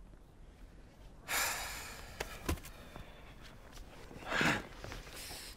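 A person's sharp breaths and gasps, with a short thump in between, as a dancer is grabbed in a violent choke move.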